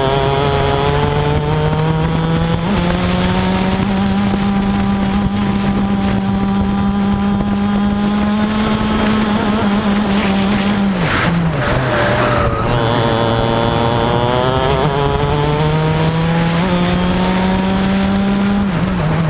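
Racing kart's two-stroke engine at full throttle, heard onboard: the revs hold high, drop sharply about eleven seconds in, then climb steadily back up.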